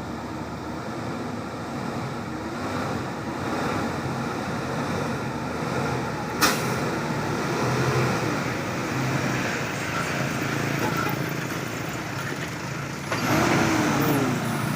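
Hino 500 Euro 4 truck's diesel engine running steadily under load. One sharp click comes about six and a half seconds in, and the sound grows louder and noisier for the last second or two.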